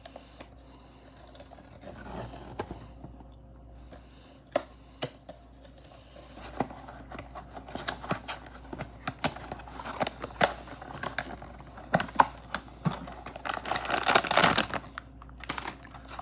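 A cardboard blind box being opened and its packaging torn and crinkled by hand: scattered clicks and scrapes that grow busier, with a louder stretch of tearing and crinkling about three seconds before the end.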